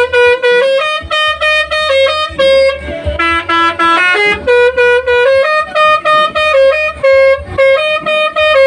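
Indonesian bus 'telolet' multi-tone horn playing a quick melody of short notes, phrase after phrase with brief breaks between them.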